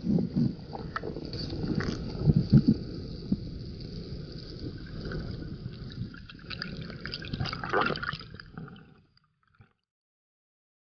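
Muffled underwater sound picked up through a camera housing: water moving and bubbling around a swimming freediver, with scattered knocks that are loudest about two and a half seconds in. The sound fades out about nine seconds in.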